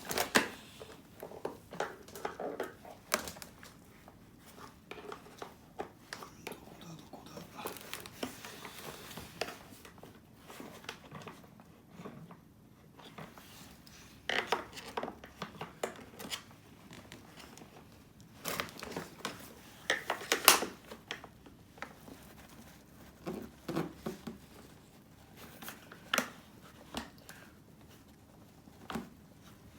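Hands working on a vacuum cleaner's parts during repair: irregular clicks, scrapes and rustles of handled plastic and tools, with louder knocks about a third of the way in and around two-thirds of the way through.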